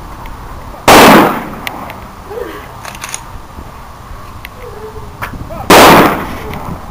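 Rifle volleys of a military funeral honor guard's firing party, the funeral rifle salute: two loud volleys about five seconds apart, each a single crack of the rifles firing together that echoes and fades.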